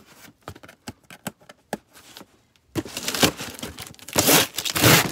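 Cardboard shipping box being handled: a few light clicks and taps, then from about halfway through loud ripping as packing tape is torn off the cardboard.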